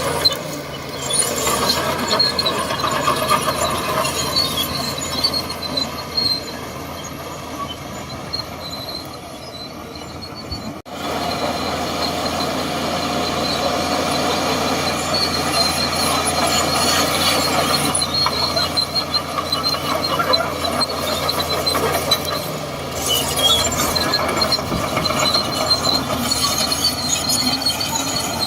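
Shantui DH17C2 crawler bulldozer working, its diesel engine running steadily under load while the steel tracks clank and squeal. The sound cuts out for an instant about eleven seconds in, then carries on.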